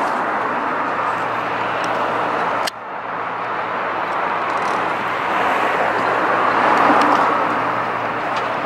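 Engine of a truck-mounted aerial lift running steadily, with a low hum under a broad steady noise. It dips suddenly for a moment about three seconds in and swells slightly near the end.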